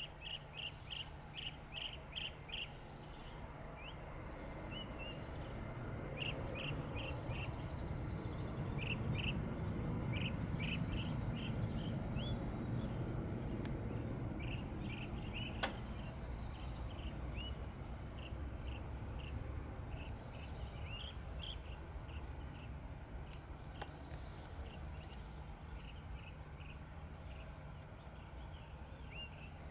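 Jet engine rumble of an Airbus A320 climbing away after take-off, swelling to its loudest about ten seconds in and then slowly fading. Short insect chirps repeat throughout over a steady high insect whine, and there is one sharp tick about halfway.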